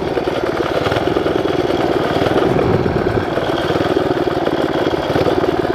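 Mini bike's 11 hp Tecumseh single-cylinder engine running hard at a steady high speed through a 30 series CVT.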